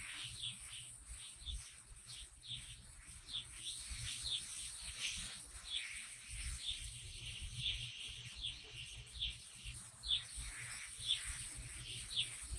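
A small bird chirping over and over: short high chirps, each sliding down in pitch, about one or two a second throughout.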